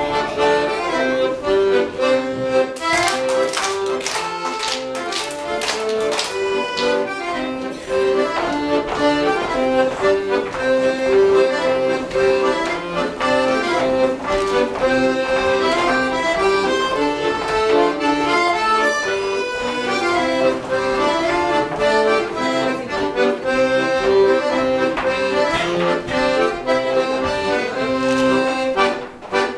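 Accordion playing a dance tune, with held chords under a running melody. A few sharp taps sound about three to six seconds in.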